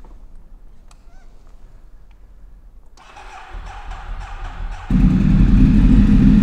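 Ducati 848's L-twin engine being started in a concrete parking garage: after a few faint clicks, the starter cranks for about two seconds. Then, near the end, the engine catches suddenly and runs loud and steady.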